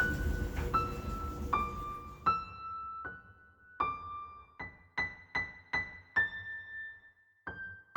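Background music: a slow keyboard melody of single notes, one roughly every half second to a second, each struck and fading. A low steady noise sits under the first two seconds and stops about two seconds in.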